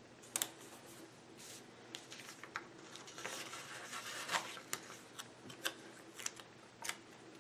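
Paper planner stickers being handled: one pressed down onto a planner page and another peeled from a sticker sheet. Soft paper rustling with scattered light clicks and taps, and a longer rustle in the middle.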